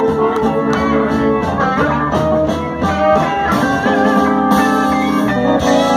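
Live electric blues band playing: lead electric guitar lines over bass guitar and drums.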